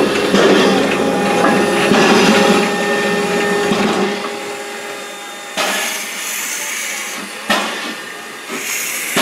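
Narrow-gauge steam tank locomotive standing with steam up: a dense, steady hiss with a held hum for the first few seconds, then quieter, broken by sudden bursts of steam hissing about five and a half seconds in and again near the end, with a single sharp knock between them.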